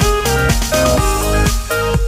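Background electronic dance music with a steady beat and a repeating melody.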